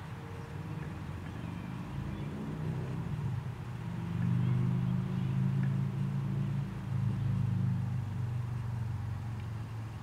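Low engine rumble, as of a distant motor vehicle, swelling about four seconds in and easing off near the end.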